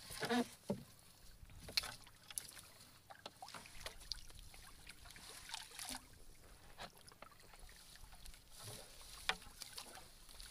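Wet gill net being hauled over a boat's bamboo outrigger poles: water dripping and splashing, with scattered small knocks and clicks.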